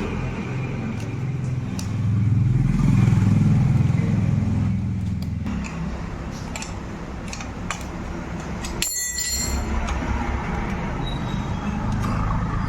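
A motor vehicle engine running, with a low rumble that swells louder for a few seconds early on and then settles. A few sharp clicks and taps are heard over it.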